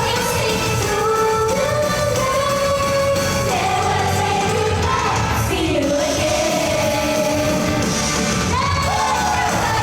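Live pop song: a female voice sings a held, gliding melody over a loud backing track through the stage sound system.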